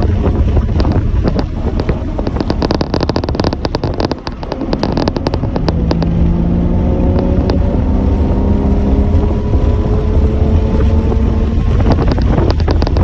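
Heavy wind rumble and crackle on the microphone. From about halfway, an engine's steady note slowly rises in pitch, then fades near the end.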